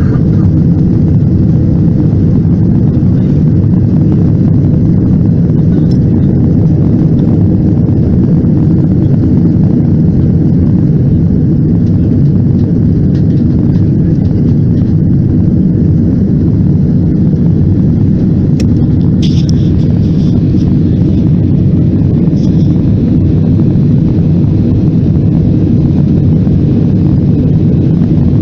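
Steady, loud, deep drone of jet engines and rushing air inside an airliner's cabin, heard from a window seat over the wing.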